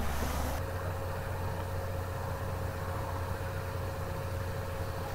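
Steady low hum with a faint, even high tone above it; the sound turns duller about half a second in.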